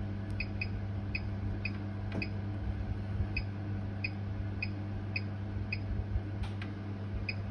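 Bosch oven control panel beeping as the plus button is pressed over and over to raise the cooking timer: short high beeps, roughly two a second, slightly uneven, over a steady low hum.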